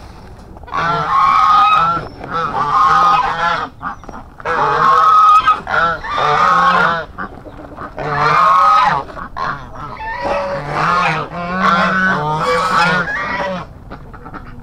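Domestic waterfowl calling loudly, a long run of wavering cries with short gaps between them, starting about a second in, as the birds wait for their feed.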